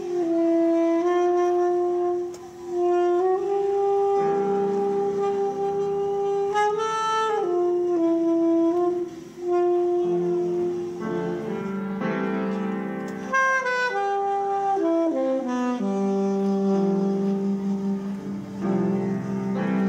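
Instrumental background music: a slow solo melody of long held notes, some sliding between pitches, with a lower sustained accompaniment coming in partway through.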